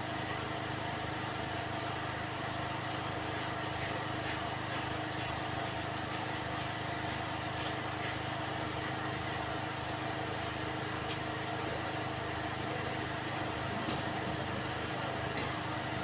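Steady machine hum with several constant tones, unchanging throughout, with a few faint ticks.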